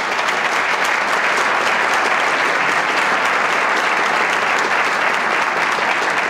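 An auditorium audience applauding, steady, sustained clapping from many hands.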